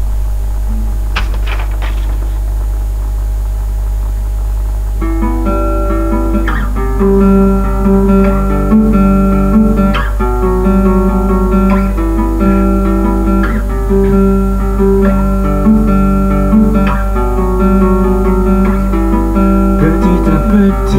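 Acoustic guitar being strummed and picked, playing chords that come in clearly about five seconds in after a few soft string clicks. A steady low hum runs underneath.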